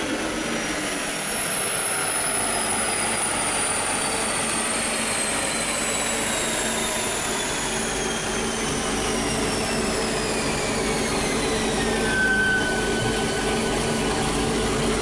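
A high mechanical whine falling slowly in pitch for about twelve seconds, then holding steady, over a steady lower hum: the 2015 Corvette Z06's drivetrain and the chassis dyno rollers winding down after a power pull.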